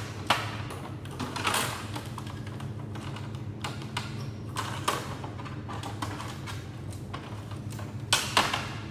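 Scattered clicks and knocks of plastic and metal parts handled inside an opened copier's scanner section, loudest twice near the end, over a steady low hum.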